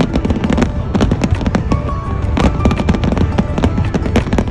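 Dense barrage of aerial firework shells bursting, many bangs a second overlapping with no pause between them.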